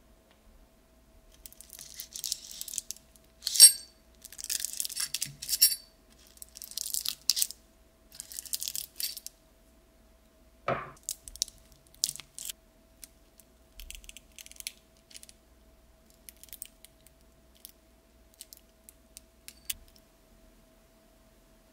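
A paper cupcake liner crinkles and rustles in bursts as it is peeled back from a rice cake on a ceramic plate, with one sharp clink a few seconds in. Then comes a dull knock, followed by scattered light taps and clicks of a thin skewer against the plate as the cake is cut.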